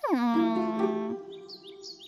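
A cartoon character's high, contented humming "mmm" that slides sharply up and down and then holds one note for about a second, over light background music. Faint high bird chirps come in during the second half.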